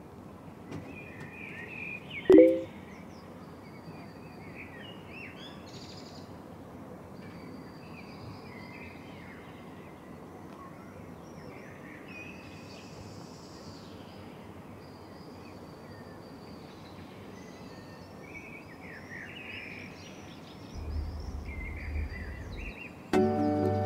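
Outdoor background ambience: a steady hiss with small birds chirping throughout. A brief, loud blip with a short tone about two seconds in, and music begins just at the end.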